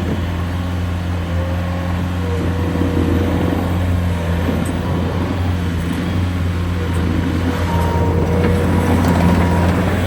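Bobcat T650 skid steer's diesel engine running steadily, with a hydraulic whine that rises in and drops out a few times as the loader's arms and bucket are worked.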